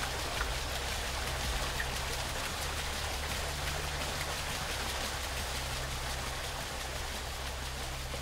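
Water pouring from a flume onto a wooden overshot water wheel and splashing off its buckets, a steady rushing patter. A low steady drone runs underneath.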